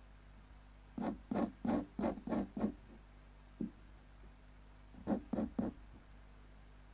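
Ink pen nib scratching across paper in short hatching strokes: six quick strokes in a row, a single one, then three more.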